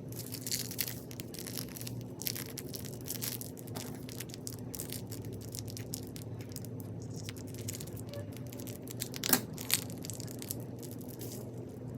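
Crunchy slime packed with more beads than slime, squeezed and worked by hand: dense, irregular crackling and crunching, with a sharper crack about nine seconds in. A faint steady hum runs underneath.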